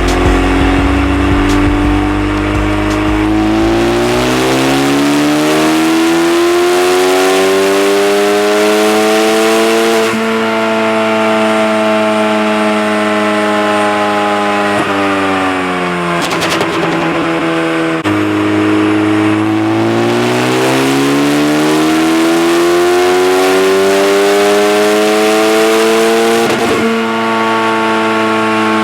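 A car engine revving at full throttle under load on a chassis dynamometer, in two pulls. Each time the pitch climbs steadily for several seconds and holds high before falling away. The first pull drops off a little past halfway, and the second near the end.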